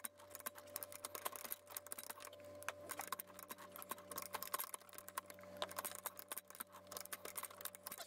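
Ratcheting hand pipe threader cutting threads on black iron pipe, played sped up: a dense run of small, irregular metal clicks from the ratchet and die, over a faint steady hum.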